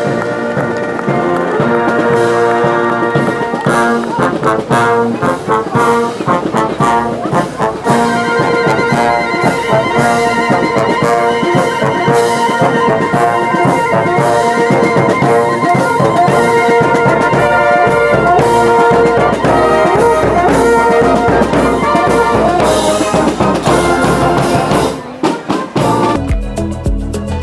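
Brass band music, with trumpets and trombones playing over a steady beat. About 25 seconds in it breaks off and different music with a heavy bass takes over.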